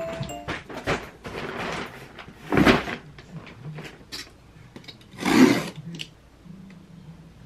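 Handling noises from a cardboard delivery box and a padded insulated delivery bag as the box is unpacked, with scraping, rustling and small knocks; the two loudest are about two and a half and five and a half seconds in. Near the end a box cutter starts on the packing tape.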